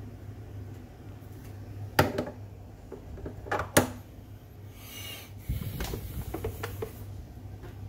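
Espresso tamper and portafilter being handled after tamping: two sharp metal knocks about two seconds apart, then a soft rustle, a low thump and a few light taps, over a steady low hum.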